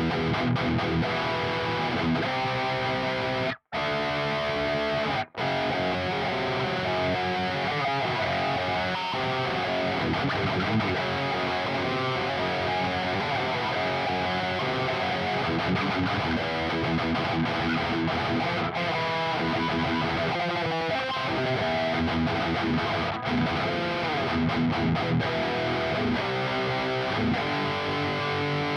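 ESP LTD RA-600 electric guitar played with distortion, running through metal riffs. The playing stops dead twice for an instant, a few seconds in.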